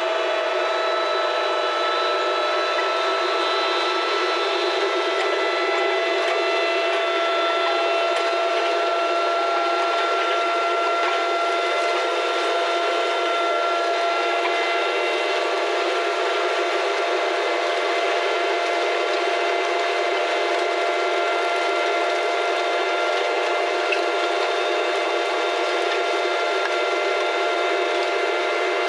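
Quadcopter drone's motors and propellers running in flight: a steady whine with several fixed pitches over an even rushing noise.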